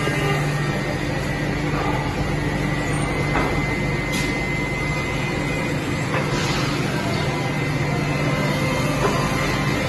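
Eight-spindle, 32-tool CNC wood milling machine running: a constant mechanical hum with a steady high tone from the spindles, and a few faint clicks.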